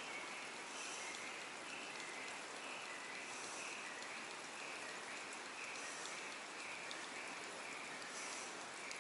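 deps Toddrat blade-bait surface lure being retrieved, its metal blade clicking against the body and hooks in a steady rhythm of about two clicks a second. Underneath is a constant patter of drops falling on the water surface.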